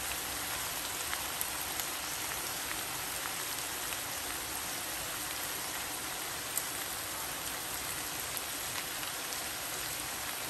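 Minced meat sizzling as it fries in oil in a wok-shaped pan: a steady frying hiss with scattered small pops and crackles.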